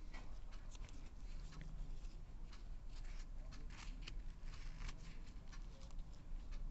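Dry roti being torn and handled with the fingers: irregular soft crackles and rustling clicks, over a low steady hum.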